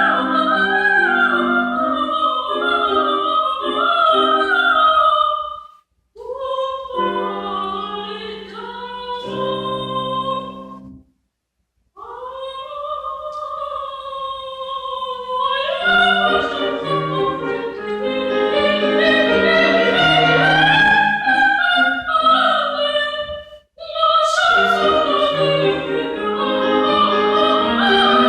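A soprano singing in classical operatic style with vibrato, over piano accompaniment. The music breaks off briefly about a fifth of the way in and stops completely for about a second a little over a third of the way in, before the voice resumes.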